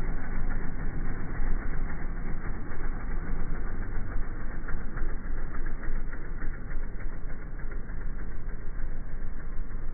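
Motorcycle engines running steadily as a column of large cruiser motorcycles rides past, heard as a muffled, continuous rumble with no treble.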